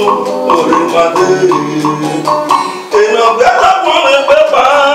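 A man singing into a microphone over electric guitar and percussion; the song's melody bends and slides, and there is a steady percussive beat.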